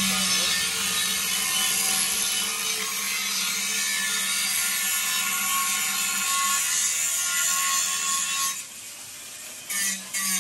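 Electric angle grinder grinding an aluminium alloy car wheel rim at a crack, running steadily under load, then stopping about eight and a half seconds in, with a few short bursts near the end. This is the grinding-clean of a cracked, leaking rim before it is welded.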